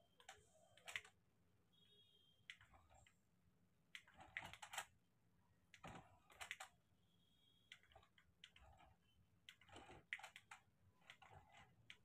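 Faint, irregular plastic clicking and clattering from a toy remote-control car being driven in short spurts. The clicks come in uneven clusters of a few at a time.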